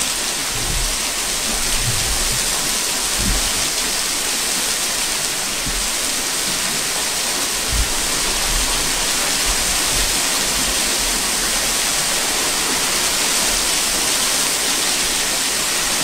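Steady rush of small river cascades, an even hiss of falling water, with a few brief low thuds.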